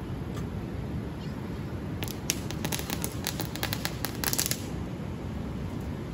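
Small firecrackers going off in a quick crackling string: a rapid run of sharp pops starting about two seconds in and lasting about two and a half seconds, over a steady low background rumble.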